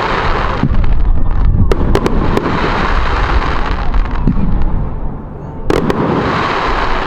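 Fireworks display: a continuous crackling hiss over low booming, with sharp cracks about half a second in, a quick cluster around two seconds in, and a pair near the end.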